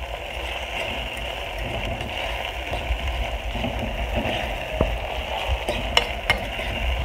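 Chopped onions, tomatoes and peppers sizzling steadily as they fry in a pot, with a few sharp clicks near the end.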